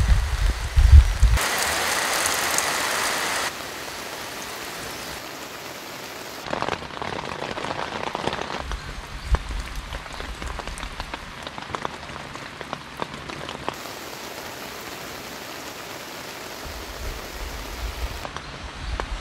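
Rain falling, first pattering onto a tarp in heavy drops, then a louder spell of steady rain from about one and a half to three and a half seconds in, then softer steady rain with scattered drips. The sound changes abruptly at each shift.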